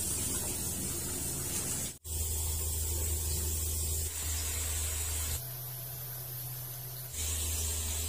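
Steady hiss of running water. It cuts out for an instant about two seconds in and changes in tone twice later on.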